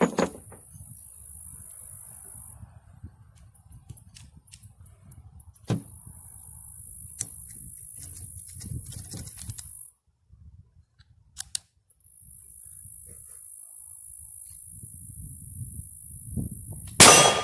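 A single loud shot from a Smith & Wesson .38 Special revolver near the end, ringing briefly after. Before it come several seconds of faint handling clicks over a low rumble, with a steady high buzz that comes and goes.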